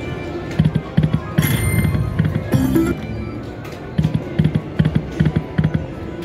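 IGT Cash Catch Panthers Gold poker machine spinning its reels: electronic game music with a low beat of about three thumps a second, and a brighter chime burst about a second and a half in.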